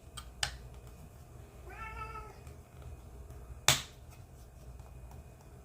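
A cat meows once, a short call that rises and falls, about two seconds in. A few faint clicks and one sharp click near the middle.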